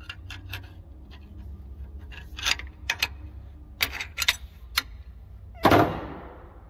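Pry bar clicking and tapping against the clutch adjusting lock tab inside a Versatile 895 tractor's bell housing, as the tab is pried out. About five and a half seconds in comes one much louder clank that trails off over about a second.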